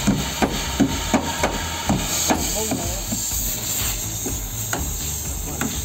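A hammer knocking along a Honda City's rust-rotted steel sill (rocker panel) that is holding water. The strikes come about three a second, then slow to scattered knocks after about two and a half seconds.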